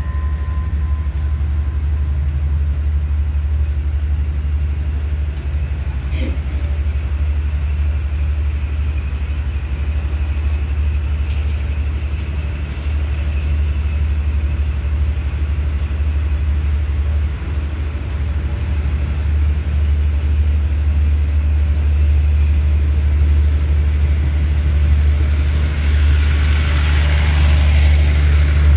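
Passenger train rolling slowly out along the platform, with a steady low engine drone and rumble. A hiss swells up near the end.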